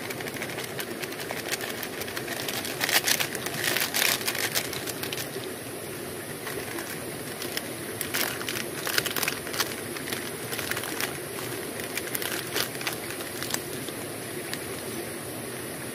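Plastic-foil instant-coffee sachet crinkling as it is shaken out and torn open by hand, with louder bouts of rustling about three seconds in and again about eight seconds in. Underneath, the steady rush of a river flowing nearby.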